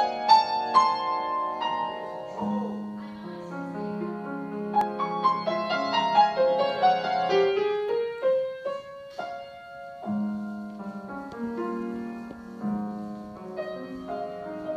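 Grand piano played solo: a melody of struck notes over held chords and bass notes.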